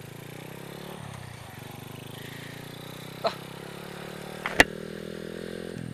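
Honda Astrea Grand's small four-stroke single-cylinder engine running under way through a gutted stock Supra X 125 FI muffler, its note shifting slightly about a second in and dropping near the end; with the muffler opened up the engine is no longer choked. A sharp click about four and a half seconds in, with a smaller one just before.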